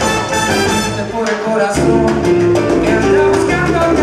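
Live salsa band playing: brass over timbales and congas, with a steady bass line.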